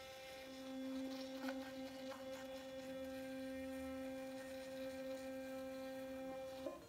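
Sonicare sonic electric toothbrush running while brushing teeth: a steady hum that breaks off briefly near the end.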